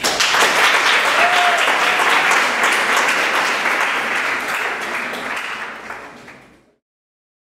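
Audience applauding, dying away over the last couple of seconds and cutting off abruptly near the end.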